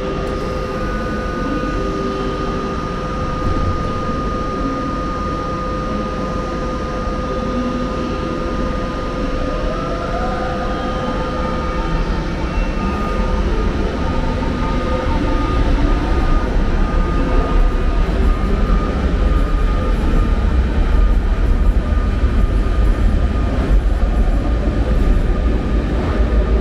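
Berlin S-Bahn electric train pulling out: a steady electric hum, then a rising motor whine about ten seconds in as it accelerates. The rumble of the cars rolling past grows louder in the second half.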